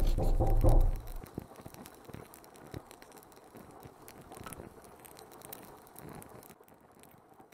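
A loud low rumble in the first second, then faint, irregular scratching and ticking of a pen nib on paper as a machine drawing is inked, dying away to near silence near the end.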